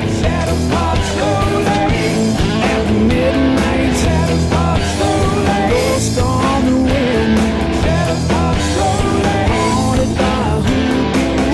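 Rock music with electric guitar and a sung melody line, in the gap between the verses of a song.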